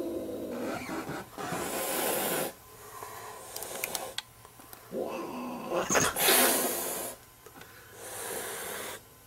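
Black cat hissing, several separate hisses of about a second each.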